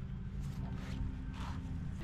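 A steady low machine hum in the background, with a couple of soft scuffs and rustles as a plastic boat hatch frame is handled.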